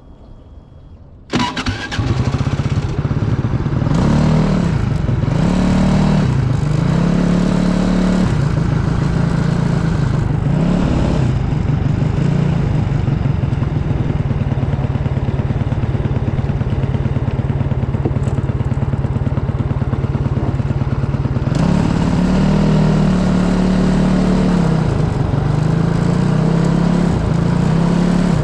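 SA250 racing kart's engine starting suddenly about a second in, then running loud, its pitch rising and falling as the kart pulls away and drives on. It holds steadier through the middle and rises and falls again near the end.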